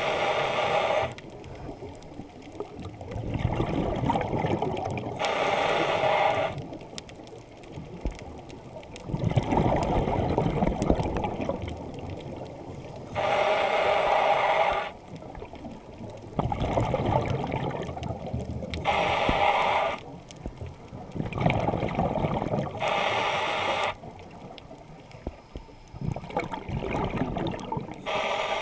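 Scuba diver breathing through a regulator underwater. Each inhalation through the demand valve is a short hiss with a ringing tone, and it alternates with a longer bubbling rumble of exhaled air, over and over at a slow, even breathing pace.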